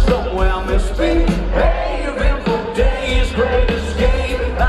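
Live rock band playing loud over a festival PA, with singing over a steady drum beat, heard from within the crowd.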